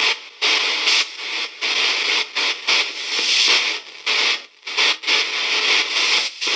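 KC-GhostBox ghost box app sweeping through its audio banks: choppy bursts of radio-like static that cut in and out every fraction of a second, with short gaps between them.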